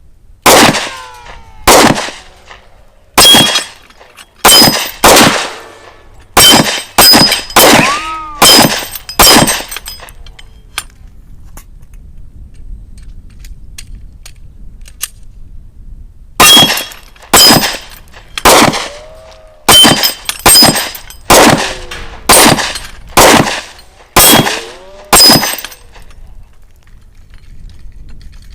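Handgun shots from a Glock 29 10 mm pistol firing .40 S&W rounds: a string of about ten shots, a pause of about six seconds, then a second string of about a dozen, spaced roughly half a second to a second apart. Several shots are followed by a brief metallic ring.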